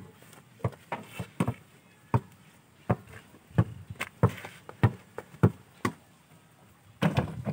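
Basketball being dribbled on a hard dirt court: a string of single dull thuds, irregularly spaced at about one or two a second.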